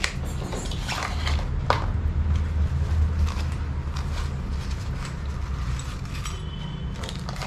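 Handling noise from unpacking a lavalier microphone: a small cardboard box is opened and a soft carrying pouch pulled out and opened, giving scattered rustles and clicks. A steady low hum runs underneath.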